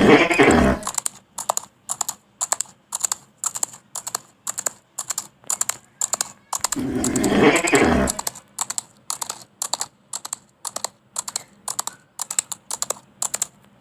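Horse hoofbeats in a fast, even clatter of hard clicks, with a horse whinnying twice: once at the start and again about seven seconds in.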